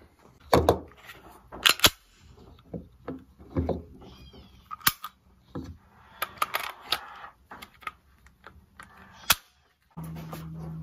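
Sharp, irregular clicks and knocks of a Smith & Wesson SD40VE pistol being handled, the loudest two coming about half a second and nearly two seconds in.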